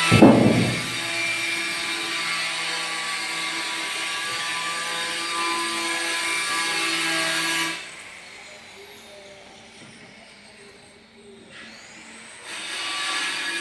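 A power tool's motor running steadily on a construction site, with a sudden loud bang right at the start. The motor sound drops away for about five seconds in the second half and comes back near the end.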